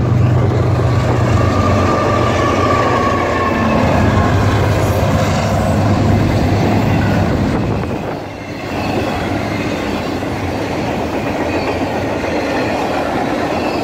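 Norfolk Southern diesel locomotives passing close by with a deep engine drone, followed after about eight seconds by double-stack intermodal well cars rolling by, steel wheels rumbling with a faint squeal.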